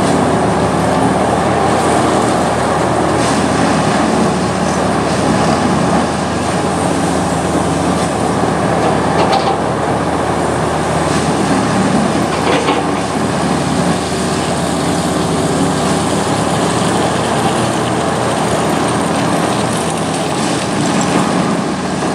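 Railway ballast tamping machine's diesel engine running steadily as the machine creeps along the track.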